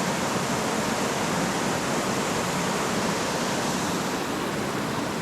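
Waterfall on a mountain brook: a steady white-noise hiss of falling water.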